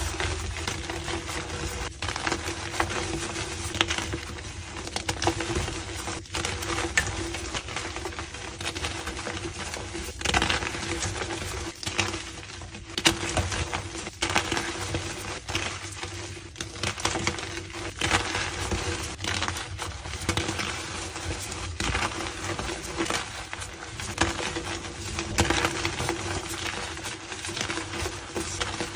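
Blocks of gym chalk being crushed and crumbled by hand: a continuous run of dense, crunchy crackles as the chalk breaks into powder.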